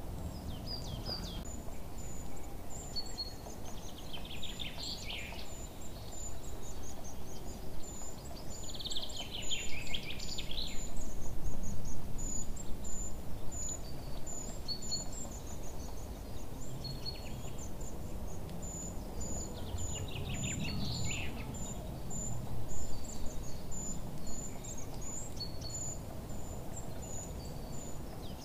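Birds chirping: a string of short, high chirps, with louder falling calls several times, over a steady low background noise.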